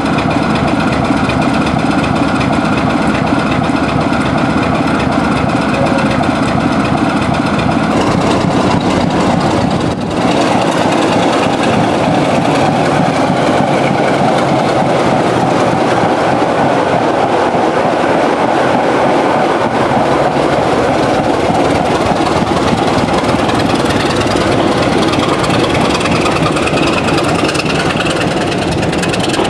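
BR Class 26 diesel locomotive's Sulzer six-cylinder engine running loud and steady close by. A steady droning tone changes at about eight to ten seconds in to a rougher, fuller rumble.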